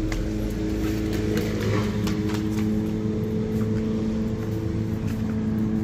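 Steady low mechanical hum, even in pitch and level throughout, with a few faint footstep taps on pavement.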